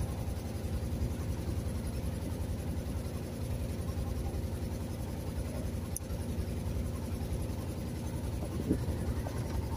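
Boat engine running steadily, heard from on board: a low, even rumble with a fast regular pulse.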